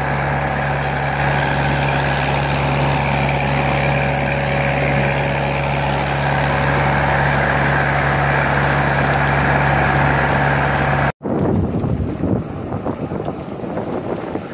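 Pompong (small wooden motorboat) engine running steadily at speed, with water rushing in its wake. About eleven seconds in it cuts off abruptly, and wind buffets the microphone over the sound of the sea.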